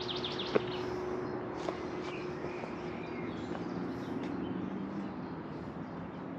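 Steady outdoor background of distant traffic with a low, even hum, and birds chirping now and then; a single short click about half a second in.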